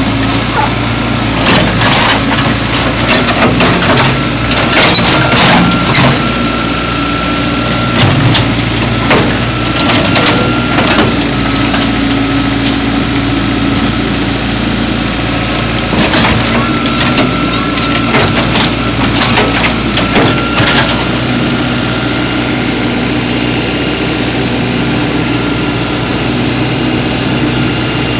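Backhoe crushing a car: the engine runs steadily under load while the car body gives repeated crunches and sharp cracks in bursts, with quieter spells between them and a thin whine that comes and goes.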